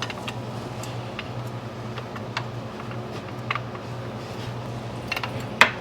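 Small metallic clicks and taps as a brake pad is worked up into a Honda Gold Wing's rear brake caliper, with one louder, sharper click near the end, over a steady low hum.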